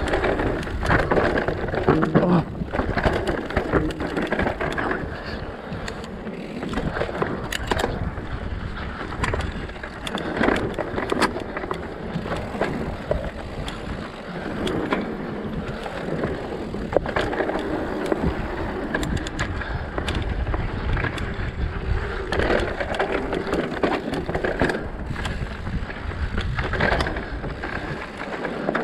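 Mountain bike riding down a dirt singletrack: tyres rolling and crunching over dirt and small stones, with the bike rattling and frequent sharp clicks and knocks as it goes over bumps.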